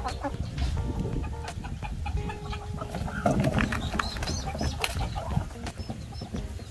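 Farmyard poultry, chickens and ducks, clucking and calling in short scattered notes, with a louder flurry about three seconds in.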